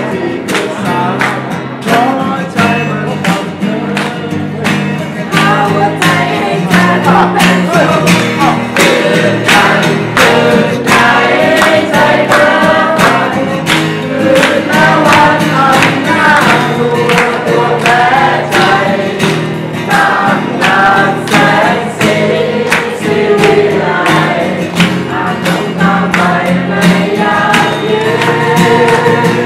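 A song: voices singing over an instrumental accompaniment with a steady beat.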